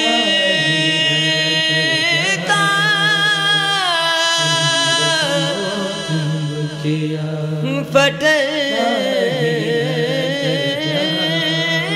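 A male voice singing long, held notes that waver and glide downward, with no words picked out, over a steady low drone: a drawn-out passage of a Sindhi devotional song.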